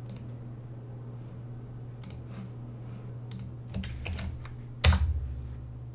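Computer keyboard keystrokes, scattered at first, then a quick run of keys just before four seconds and one hard, loud keystroke with a low thump about five seconds in, over a steady low hum.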